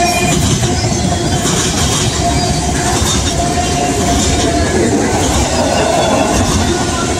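Train passing close by with a steady, loud rumble of wheels on rail. Scattered clicks run through it, with a faint thin tone coming and going.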